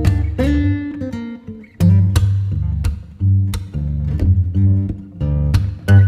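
Background music led by plucked acoustic guitar, with strummed chords over a steady bass line.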